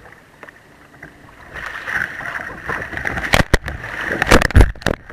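Water thrown by a kayak paddle splashing over the camera. A rushing spatter builds about a second and a half in, then turns into a run of loud, sharp slaps of water hitting the camera, the heaviest near the end.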